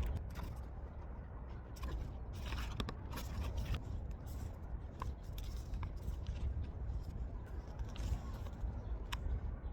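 Hands handling album packaging: irregular scraping, rustling and small clicks of cardboard and plastic, over a low handling rumble.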